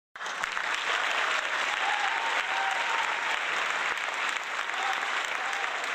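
Crowd applauding steadily, a stock applause sound effect under an intro title card.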